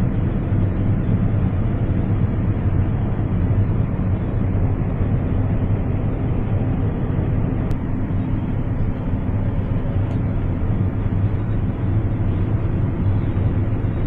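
Combine harvester running steadily with a low, even engine drone and hum.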